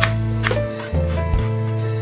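Instrumental background music: held notes over a bass line, with a few sharp beats.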